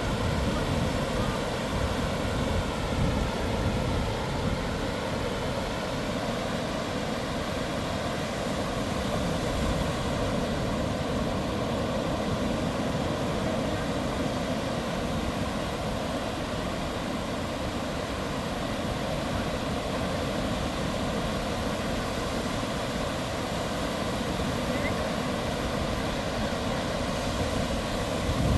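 Steady engine drone that holds one pitch without rising or falling.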